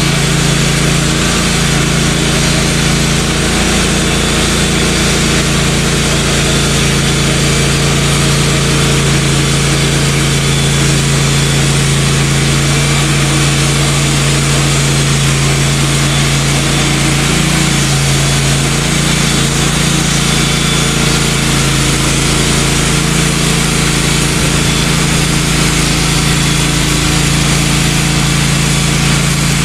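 Wood-Mizer LT15 band sawmill running steadily, its engine holding a constant pitch as the band blade cuts through a pine log.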